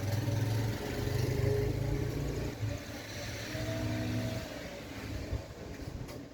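A motor vehicle's engine running as it passes by, loudest in the first couple of seconds and fading away.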